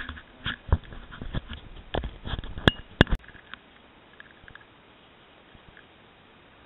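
Small camera being handled by hand: a run of irregular knocks, taps and clicks on its housing, the sharpest two about three seconds in, then only faint hiss.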